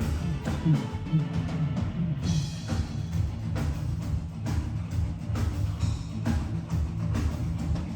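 Live band music with drums and a heavy bass, played loud through a PA, with sharp drum hits over a dense low rumble.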